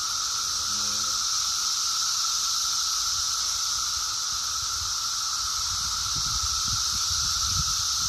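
Brood X periodical cicadas chorusing in the trees: a dense, steady, high-pitched drone with no break. Low rumbles from wind or handling on the microphone come in during the second half.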